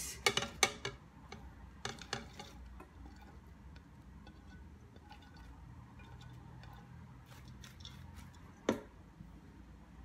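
Silicone spatula scraping and tapping sliced leeks off a plate into a pressure cooker's pot: a quick run of scrapes and clicks in the first couple of seconds, then faint light crackling. One sharp knock near the end.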